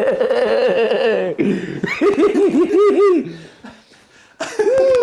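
A man laughing loudly in reaction to a chiropractic adjustment: a long drawn-out high cry, then a quick run of 'ha-ha' bursts about two seconds in, a short pause, and more laughter near the end.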